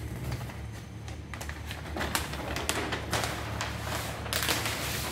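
Large sheets of flip-chart paper being lifted and turned back over the top of the easel, rustling and crackling irregularly, loudest from about two seconds in until near the end. A low steady hum runs underneath.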